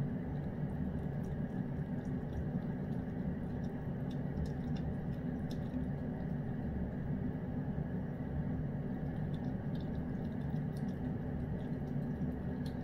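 Lynx point cat eating fried chicken from a hand-held bowl: faint, irregular wet clicks and smacks of chewing and licking. These sit over a steady low hum that runs unchanged throughout.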